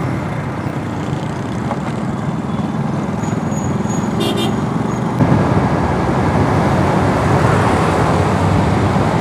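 Honda CD-70 motorcycle's small single-cylinder four-stroke engine running as it rides through traffic, with wind noise over the microphone. A brief high-pitched beep comes about four seconds in, and the engine and wind grow louder about five seconds in.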